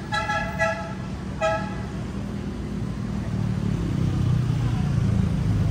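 A vehicle horn sounds three short toots in the first two seconds. From about three seconds in, a vehicle engine's low drone grows louder.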